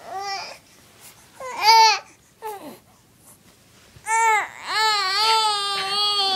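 Baby fussing: a couple of short whiny cries, then a longer drawn-out cry starting about four seconds in.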